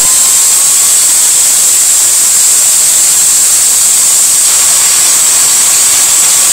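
Corded power drill running steadily at full speed with an exhaust valve chucked in it, a constant high-pitched whir, while 80-grit sandpaper is worked on the spinning valve to clean off its carbon.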